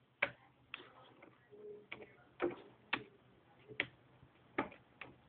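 Computer keyboard keys being typed, a slow, irregular series of sharp clicks while entering a device name.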